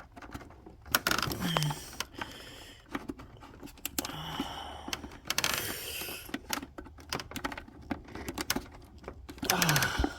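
Irregular clicks, taps and scrapes of plastic clips and housing being squeezed and pried by hand while freeing the engine computer (PCM) case in a car's engine bay. A longer rustling scrape comes about five seconds in, and a few short low vocal sounds are heard.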